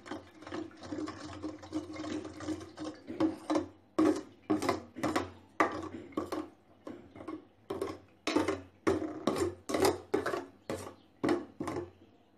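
Wooden spatula scraping and pressing wood apple pulp against a perforated steel strainer, pushing the juice through. The scraping is continuous at first, then from about three seconds in it becomes distinct strokes at about two a second.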